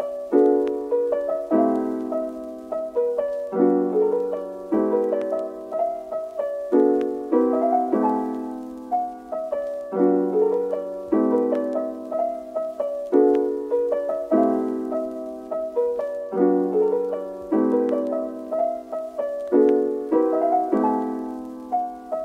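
Background piano music: soft chords struck about once a second, each ringing and dying away before the next.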